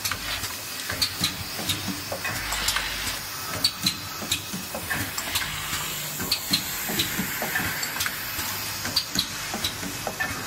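Automatic oil seal spring-loading machine running: a steady hiss with irregular sharp clicks and light clatter as parts are fed and worked.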